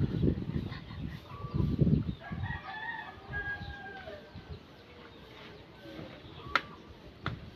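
A rooster crows once, one long call of about two seconds. Low rumbling noise comes before it in the first two seconds, and two sharp clicks come near the end.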